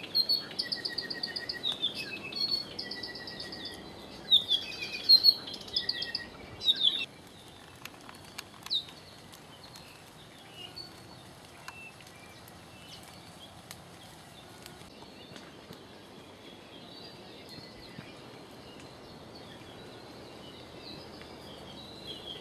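Small birds chirping and trilling in quick, repeated high notes for about the first seven seconds. After that only faint, scattered calls remain over a quiet forest background.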